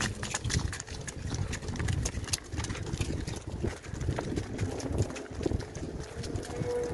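Dairy cows' hooves clopping on a concrete lane, a rapid scatter of clicks that thins out after about three seconds as the herd moves off, over a low rumble.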